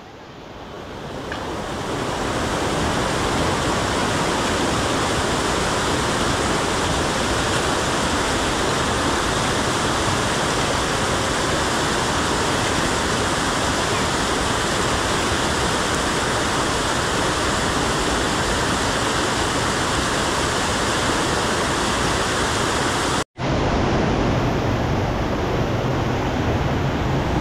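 Fast mountain stream rushing and cascading through a narrow stone-walled channel: a steady, loud rush of water. It fades in over the first two seconds and breaks off for an instant about 23 seconds in.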